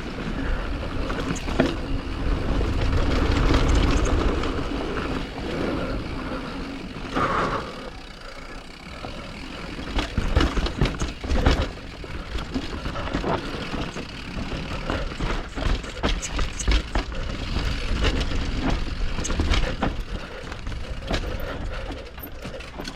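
Mountain bike riding down a rough downhill trail: a steady rush of wind and tyre noise with a deep rumble, and the bike knocking and rattling over bumps many times.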